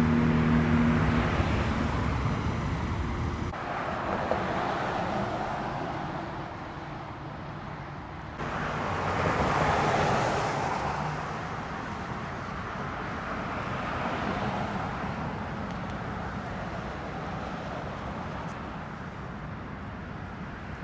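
Road traffic: a low engine hum fades over the first few seconds, then cars pass, one swelling and fading about ten seconds in and a fainter one around fourteen seconds. The sound changes abruptly twice, early and near the middle.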